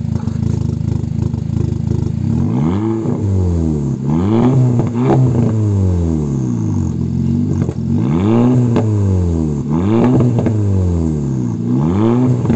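Volkswagen Golf Mk5 GTI engine idling through an R32-style centre twin exhaust, blipped up to higher revs about seven times, each rev rising quickly and falling back to idle, with several of the blips coming in quick pairs.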